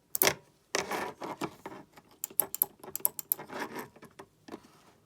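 Homemade micro-switch Morse key being tapped, giving sharp mechanical clicks in irregular runs. The clicks come quicker from about two seconds in, with some handling rattle mixed in.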